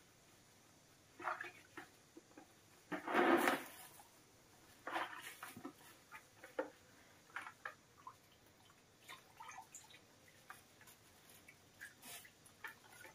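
Water sloshing and splashing in a plastic bucket as a kitten is washed by hand, in short irregular bursts, the loudest about three seconds in.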